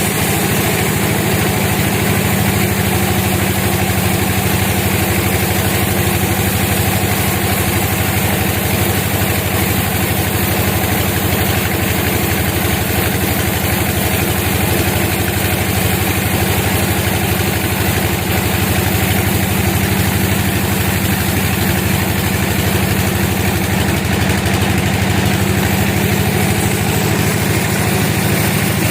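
A sawmill's engine running at a steady, even pitch.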